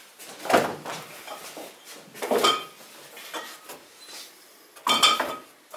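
Glass wine bottles clinking and knocking as they are taken from a cellar rack and packed into a cardboard box: three main clinks with a short ring, the last near the end, and smaller knocks between.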